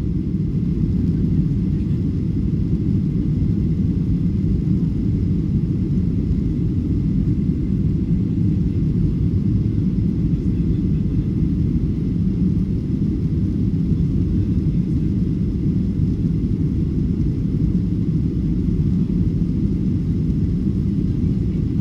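Steady low rumble inside the cabin of a Boeing 737 airliner in flight: jet engine and airflow noise.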